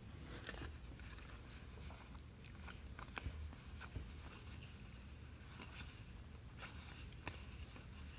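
Faint slides and soft ticks of baseball cards being flipped one by one off a stack held in the hand, over a low steady hum.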